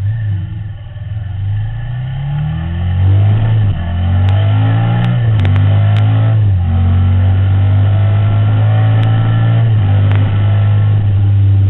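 Ducati motorcycle engine accelerating through the gears: the pitch climbs, drops sharply at upshifts about a third and about halfway in, then holds steady at cruising speed.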